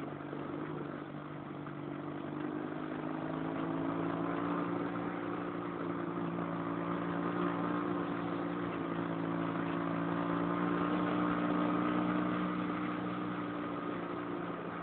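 Dune buggy engine running at a steady, moderate speed, heard from the cockpit while driving along a snowy track. The engine note holds nearly constant, swelling slightly in level a few times.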